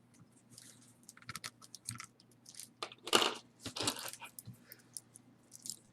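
Costume jewelry being handled: irregular small clicks and light rustling, with a louder clatter about three seconds in.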